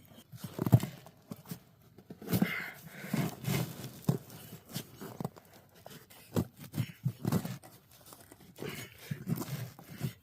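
Irregular knocks, clinks and scraping of hand work on a tire and rim, as the tire with a tube inside is levered onto the rim.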